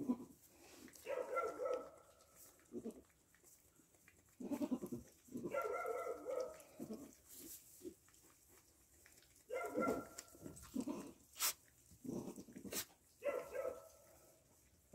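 Nigerian Dwarf goats bleating: about four drawn-out calls spread a few seconds apart, with a couple of sharp clicks in between near the end.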